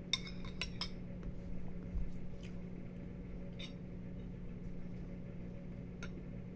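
Metal spoon clinking and scraping against a ceramic bowl, a quick run of clinks in the first second, then a few single faint clicks.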